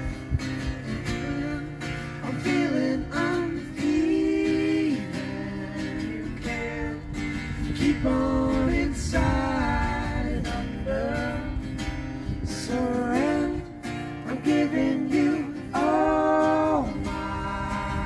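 Acoustic guitar and mandolin strummed in a live folk song, with men's voices singing together in harmony in phrases that come and go over the playing.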